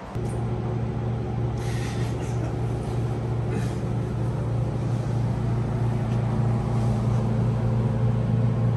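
Steady machine hum with a low, constant pitch that does not rise or fall.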